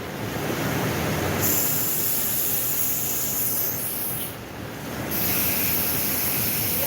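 A pressurised spray hissing steadily. It cuts out about four seconds in and starts again about a second later.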